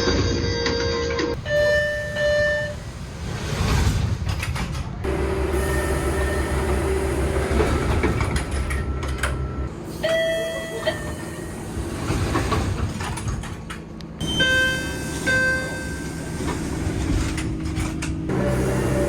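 MBTA Orange Line subway car door chimes in several short clips: brief pitched two- or three-tone chimes sound about a second in, around the middle and a few seconds later, with steady train motor hum and station noise between them.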